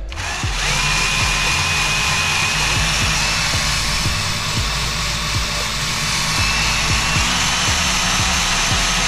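A power tool's electric motor running steadily, a whine over a rushing hiss, coming up to speed in the first second. Background music plays underneath.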